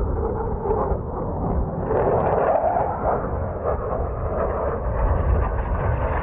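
Steady distant roar of an A-10 Thunderbolt II attack jet, swelling a little about two seconds in, over a low rumble of wind on the microphone.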